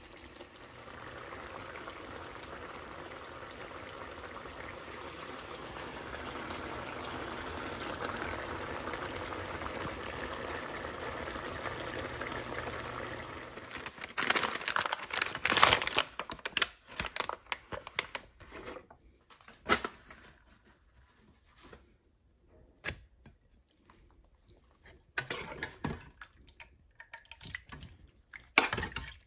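A steady watery hiss that grows a little louder, then stops about fourteen seconds in. Scattered sharp clicks and knocks follow, the loudest cluster straight after it stops.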